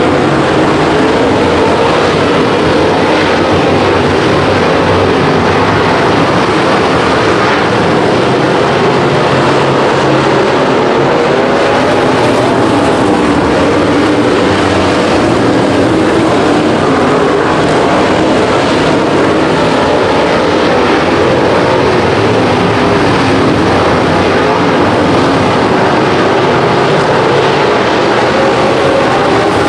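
Race car engines running hard as a field laps a dirt oval: a loud, steady din whose pitch wavers slightly as the cars go around.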